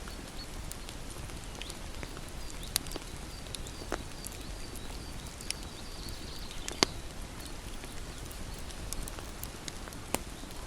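Wood bonfire crackling, with scattered sharp pops over a steady low rumble. The loudest pop comes a little past the middle. For the first half or so, a faint high chirping repeats about twice a second behind the fire.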